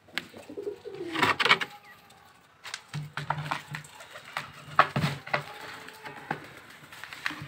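Domestic pigeons cooing in low, repeated calls, with scattered sharp taps and clicks on the concrete as the flock pecks about.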